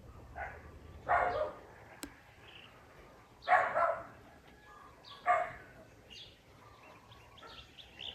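A dog barking: three loud barks spread a couple of seconds apart, with a fainter one just before them.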